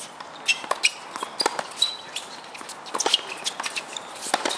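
Doubles tennis rally on a hard court: a string of sharp knocks from racket strikes and ball bounces, mixed with quick footsteps and sneaker scuffs.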